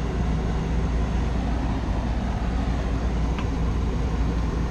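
Steady low drone of running machinery with a low hum, typical of rooftop air-conditioning equipment, and a single faint metallic click about three and a half seconds in.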